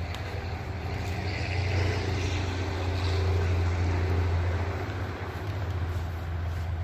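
A low engine drone, steady in pitch, swelling to its loudest in the middle and easing off toward the end, with the rustle of a nylon bag as a folded camping chair is pushed into it.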